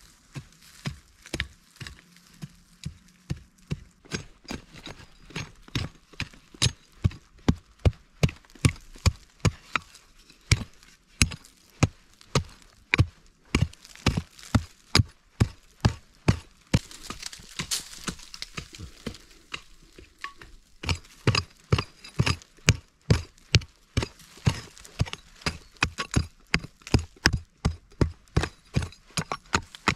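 Short-handled hand pick chopping into stony soil, a steady run of sharp strikes about two a second.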